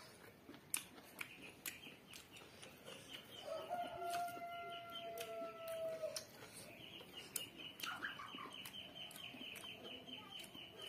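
A rooster crows once, one long steady call starting about three and a half seconds in and dropping off at its end, over the wet clicks and smacks of someone eating rice and chicken with his fingers.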